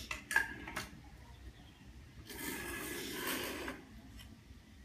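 Hand work on newly laid ceramic floor tiles: a few light clicks, then a rubbing scrape lasting about a second and a half.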